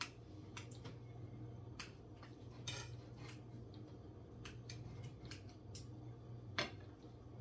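Knife and fork clicking and scraping on a dinner plate while a fried ribeye steak is cut, about ten light, irregularly spaced clicks with one short scrape about two and a half seconds in. A steady low hum runs underneath.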